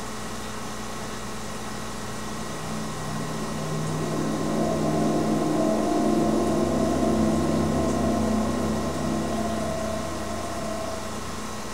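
A low, groaning drone of several sustained tones swells in about three seconds in, is loudest in the middle and fades near the end, over a steady background hum: the kind of recording circulated as a mysterious 'strange noise' heard in the sky.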